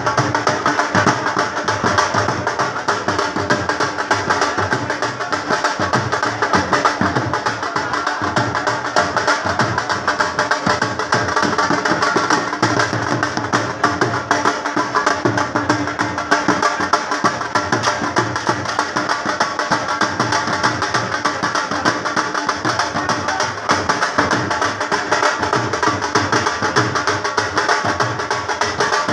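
Dhol drum beaten in a steady, unbroken rhythm.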